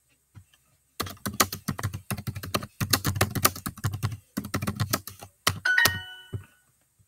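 Rapid typing, a quick run of sharp clicks of fingers on a keyboard, stopping about five and a half seconds in; just after it, a short electronic chime of several tones sounds.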